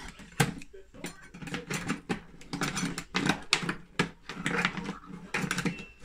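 Scissors cutting and widening a hole in an empty plastic Coke bottle, the thin plastic crackling and clicking irregularly.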